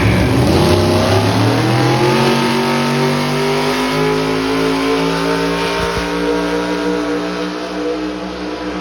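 Pulling truck's engine revving up hard: its pitch climbs over the first two seconds or so, then holds high and steady while the truck pulls under load.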